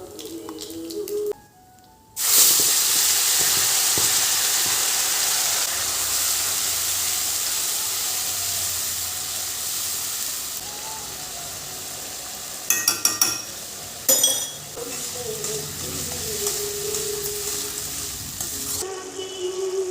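Food going into hot oil in a pan: a sudden loud sizzle about two seconds in that keeps sizzling and slowly dies down. A few quick clattering scrapes of a spoon stirring in the pan come about two-thirds of the way through.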